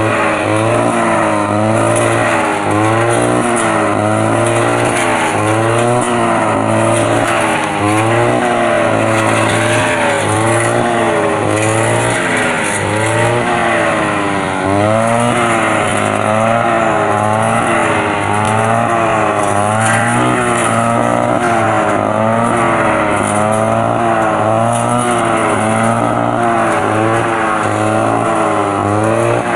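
Kawasaki TG25 two-stroke brush cutter running hard while cutting thick weeds. Its pitch dips and recovers about once a second as the blade bites into the growth on each sweep, and it falls away at the very end.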